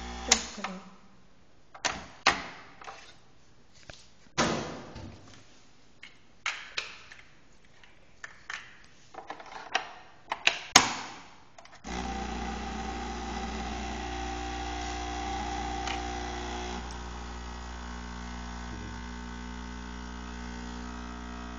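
Capsule coffee machine: the pump's hum stops, then comes a run of clicks and knocks as the capsule holder is handled between the milk and coffee capsules. About halfway through, the pump starts again with a steady buzzing hum as the coffee is pumped through onto the milk.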